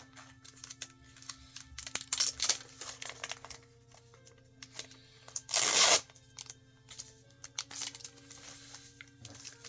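Bagged comic books being handled: plastic sleeves crinkling and rustling in short bursts, with one louder tearing rustle about halfway through. Faint background music plays underneath.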